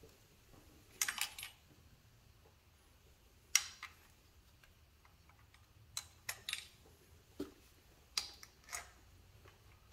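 Light metallic clinks and taps at irregular moments, a few in quick succession, from bolts and hand tools knocking against the aluminium lower intake manifold of a Jeep 3.8L V6 as its bolts are hand-tightened.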